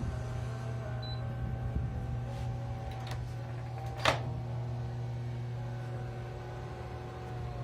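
Microwave oven running with a steady low hum, and a single sharp click about four seconds in.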